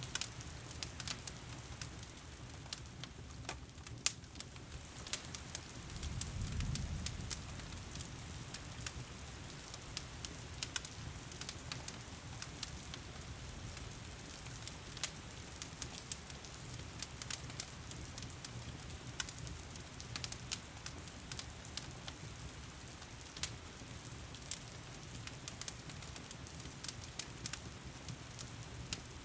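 Wood fire crackling with frequent sharp pops over a steady wash of heavy rain. A low rumble swells briefly about six seconds in.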